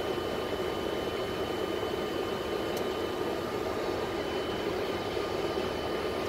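Steady flight-deck ambient noise of a Boeing 747-400 with its engines at idle: an even hum and hiss of engines and ventilation, with two faint high whines running through it.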